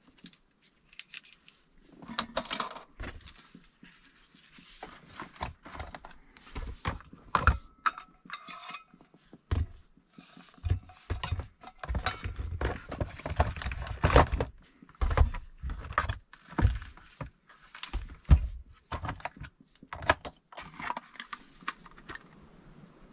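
Camp gear being handled: metal cups and utensils clinking and clattering, with knocks and rustles as things are lifted in and out of a plastic storage box. The clatter starts about two seconds in and goes on in irregular bursts.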